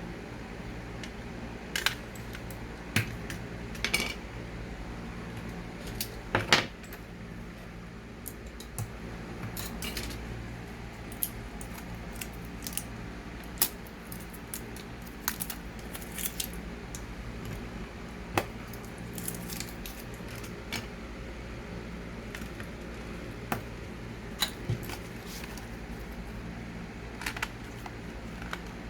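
Scattered light clicks and clatters of small hard plastic parts being handled, at irregular intervals over a steady low hum.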